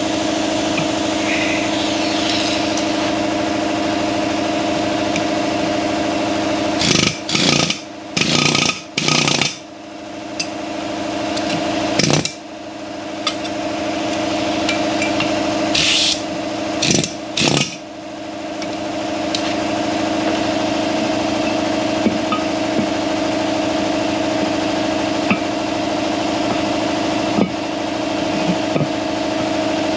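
A steady machine hum runs throughout. It is broken by several short, loud bursts of a power tool: three close together about seven seconds in, one near twelve seconds and three more around sixteen to seventeen seconds.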